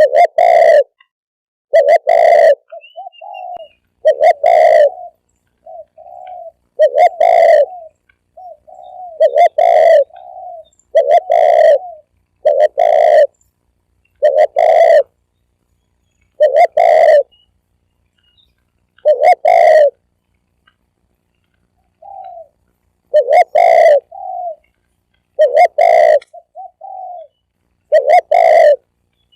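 Spotted dove cooing over and over: loud, short coos every one to two seconds, with softer, slightly higher notes between some of them.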